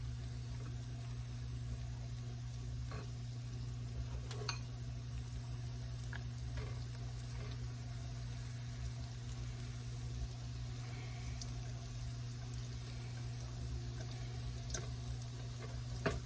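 Egg-and-flour battered oyster mushrooms sizzling in hot grease in a skillet, with a few faint scattered pops, over a steady low hum.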